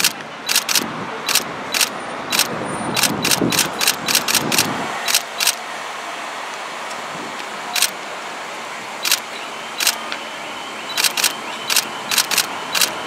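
Camera shutters firing in quick bursts of several clicks a second, with short pauses between bursts, over a steady background hum of street and engine noise.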